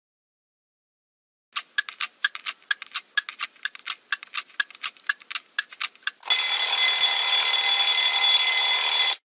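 Countdown-timer sound effect: rapid clock ticking for about five seconds, then an alarm ringing for about three seconds as the timer reaches zero, cut off suddenly.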